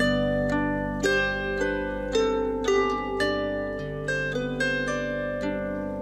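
Solo harp playing a slow melody: single plucked notes, about two a second, each left to ring over sustained low bass notes.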